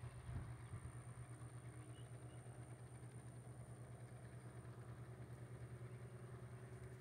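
Small helicopter climbing away after takeoff: a faint, steady low rotor and engine beat with an even, rapid pulse, fading slightly.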